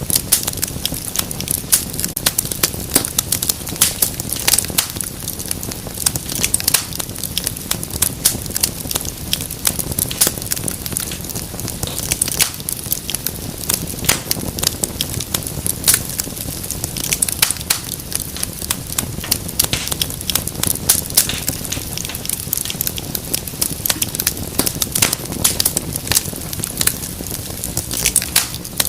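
Wood fire crackling in a fireplace: many sharp pops and snaps over a steady hiss and low rumble of the flames.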